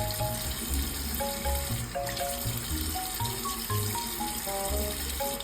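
Tap water running steadily into a sink, under background music with a simple note-by-note melody and a bass line.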